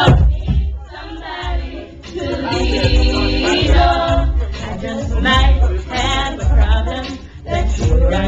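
A group of voices singing a church song together, with a steady low beat underneath.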